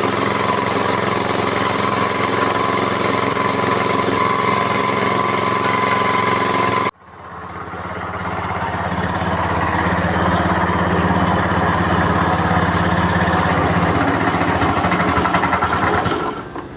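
FFC 23 disk mill running with a steady mechanical drone. It cuts off abruptly about seven seconds in, then a second stretch of the mill running builds up over a few seconds and drops away near the end.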